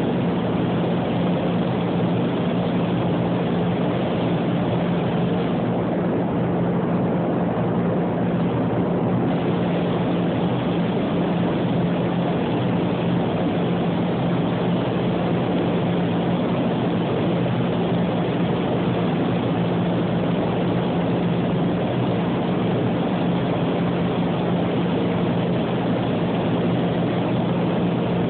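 Steady rush of air in an automotive spray-paint booth: the booth's ventilation fans running with a constant low hum, mixed with the hiss of a compressed-air paint spray gun.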